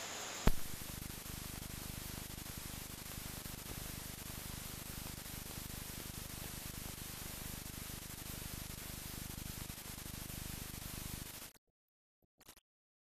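Steady hiss and crackle of an old film soundtrack with no distinct sound on it. It starts with a sharp click about half a second in and cuts off suddenly near the end.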